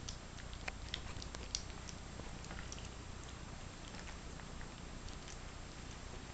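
Yorkshire terrier mother and her month-old puppies making small mouth sounds: soft wet clicks and smacks of licking and suckling, scattered and busiest in the first two seconds, over a faint steady low hum.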